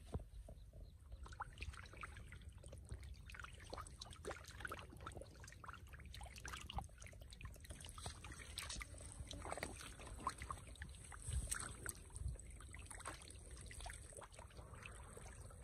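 Shallow muddy canal water splashing and trickling in small irregular bursts, over a low rumble of wind on the microphone.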